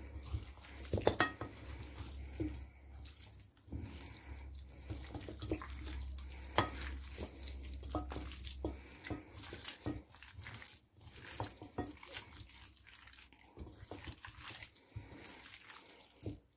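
Chicken drumsticks being mixed by hand in a wet marinade in a glass bowl: irregular squelching with small knocks of the pieces against the glass. A low steady hum stops about nine seconds in.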